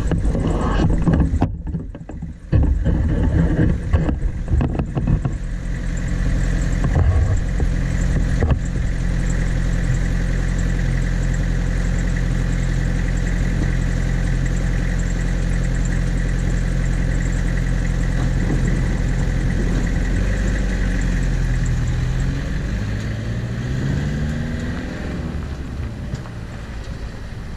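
Small cab-over truck's engine idling steadily, then revving through a few rising and falling sweeps as the truck pulls away, fading as it drives off. A few knocks and handling noises come in the first few seconds.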